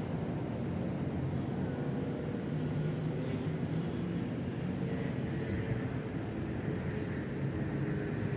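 Train moving slowly, a steady low rumble with a faint engine hum.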